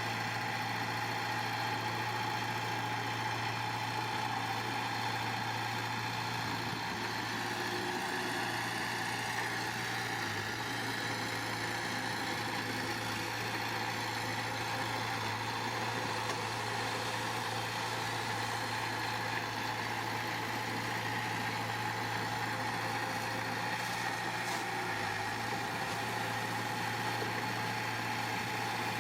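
Diesel engine of heavy earthmoving machinery running steadily at an even speed, with a constant low hum and a steady higher whine over it.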